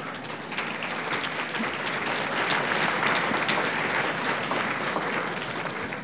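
Audience applauding: a dense patter of many hands clapping that builds over the first couple of seconds and eases off near the end.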